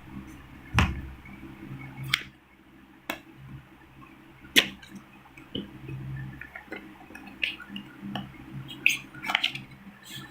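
Hands handling and opening a power bank's packaging: scattered clicks, taps and small knocks of cardboard and plastic, with the sharpest about a second in and about four and a half seconds in, over a faint steady low hum.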